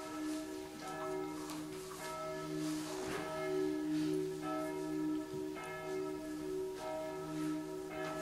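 Bells ringing: several long, overlapping ringing tones that swell and fade in a slow pulse, with fresh strikes every second or so.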